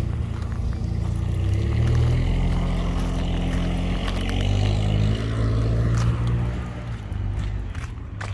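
USPS Grumman LLV mail truck's engine running close by as the truck pulls away, its pitch stepping up and down, then fading near the end as it draws off down the street.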